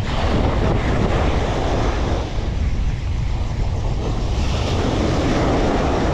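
Wind buffeting the microphone with a steady low rumble, over sea waves washing and splashing in swells every couple of seconds.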